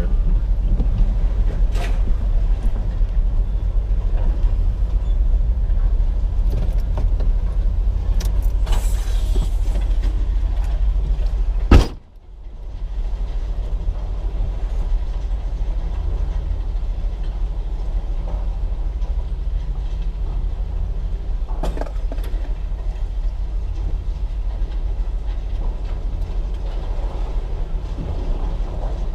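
A vehicle engine running with a steady low rumble as the truck pulls forward a little. About halfway through there is one sharp knock, and the sound cuts out briefly before the rumble returns.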